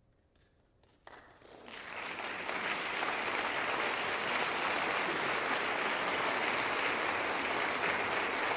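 Near silence, then audience applause breaks out about a second in and swells within a second or so to steady, dense clapping.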